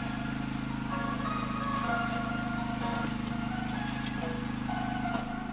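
A small engine running steadily at a constant pitch, with faint higher tones coming and going over it.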